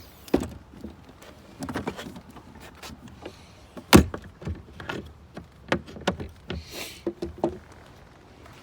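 Irregular knocks, clicks and thumps from handling, the loudest a sharp knock about four seconds in, with a brief rustle near seven seconds.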